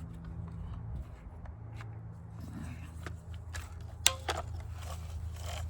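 Small clicks and rattles of hands working on a chainsaw's bar and chain while its bar nuts are tightened, with one sharp metallic click about four seconds in, over a steady low hum.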